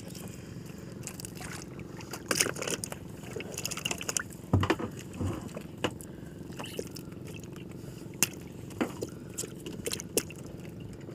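Boat engine running steadily while a fishing net is hauled aboard, with irregular knocks, wet slaps and scrapes as fish are worked free of the mesh, busiest from about two to six seconds in and again near the end.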